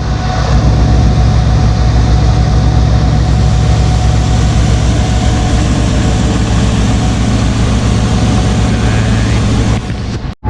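Large diesel engine of farm harvest machinery running steadily at working speed, a deep even hum with a thin steady whine above it.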